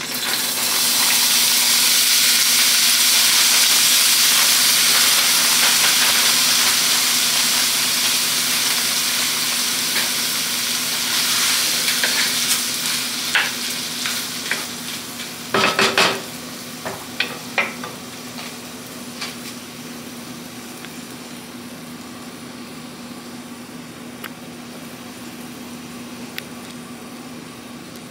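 A rice and vegetable mix hits a hot nonstick wok and sizzles loudly, the hiss slowly dying down as the pan takes the load. About halfway through come a few sharp knocks and scrapes of a spatula against the pan as the food is stirred.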